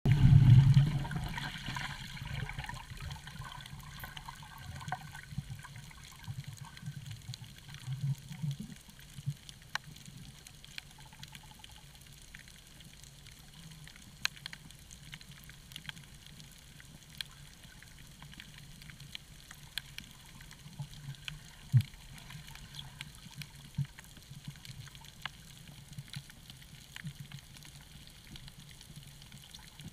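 Underwater recording: a loud rush of water and bubbling in the first couple of seconds as a snorkeler dives close past the camera, fading into a quiet underwater hush with a low rumble and scattered sharp clicks.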